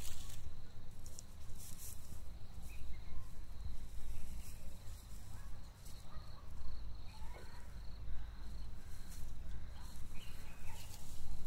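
Outdoor ambience: a steady high insect trill, a few short bird chirps, and light rustling of dry straw as a kitten moves through it, over a low rumble.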